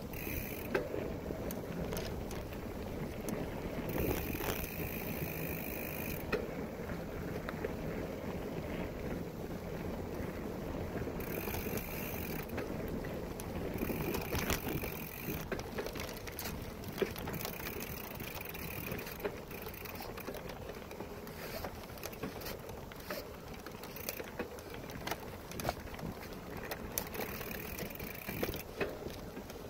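Bicycle rolling along a dirt trail: a steady rush of knobby tyres over dirt and leaves, with frequent short clicks and rattles from the bike over bumps.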